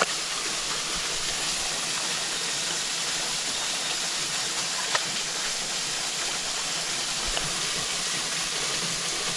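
Steady rush of flowing creek water by a waterfall, with two short knocks, one at the very start and one about halfway through.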